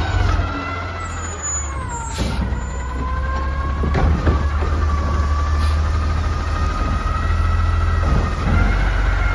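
Natural-gas front-loader garbage truck running with its hydraulics working the Curotto Can arm: a high hydraulic whine that falls in pitch over the first two seconds and then holds steady over a low engine rumble. A few clunks as the arm grips and handles a trash cart.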